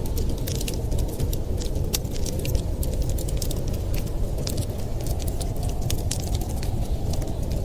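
Wood fire crackling in a fireplace, with frequent small, irregular pops and snaps over a steady low rumble.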